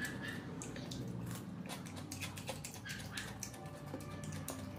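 Close-miked chewing and mouth sounds of someone eating: many small irregular wet clicks and smacks.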